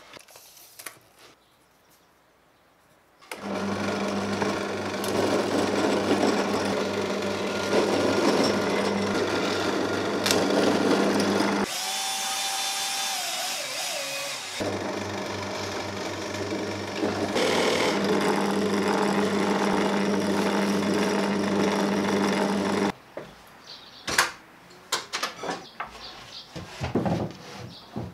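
Benchtop drill press starts about three seconds in, its motor humming steadily as the bit bores into plywood, with a weaker, different stretch for a few seconds in the middle. It stops about twenty-three seconds in, followed by scattered knocks and clicks of wood being handled.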